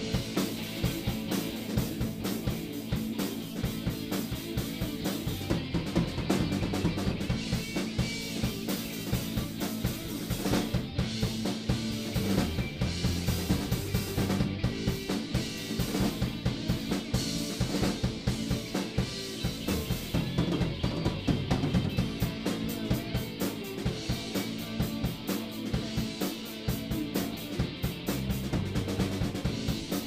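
Live rock band playing: drum kit, electric guitars and electric bass through amplifiers, with the drums hit steadily and prominent throughout.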